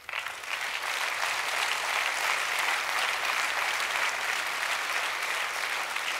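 Large audience applauding, starting suddenly and holding steady.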